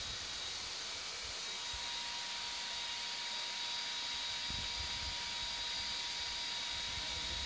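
Steady background hiss carrying a faint, high, steady whine at two pitches, with a few soft low bumps partway through.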